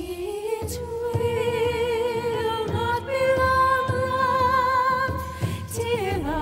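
Female voice singing a slow Irish air in long held notes with vibrato, gliding down near the end, over drums and a low instrumental backing.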